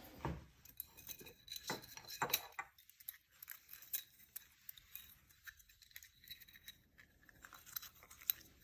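Scattered faint clicks and taps of small plastic and metal faucet valve parts being handled and fitted together, busiest in the first couple of seconds.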